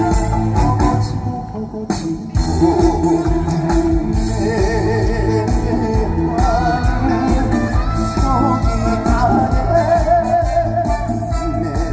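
Live trot song from a concert sound system: a backing band with guitar under a male singer's voice, the voice wavering with vibrato from about four seconds in.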